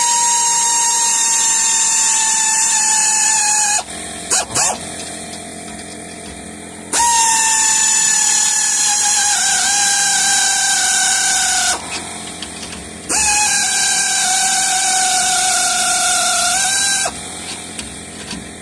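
Pneumatic air ratchet running in three long spells, its whine sagging a little in pitch as it drives a nut down the threaded rod of a Hellwig traction spring under load. A few clicks in the pause about four seconds in.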